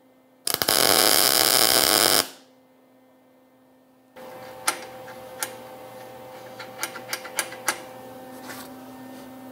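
A MIG welder laying a single tack weld, a harsh steady crackle lasting under two seconds about half a second in. Later, a run of light, sharp metal clicks and taps as the tacked bracket is handled on the steel table, over a low steady hum.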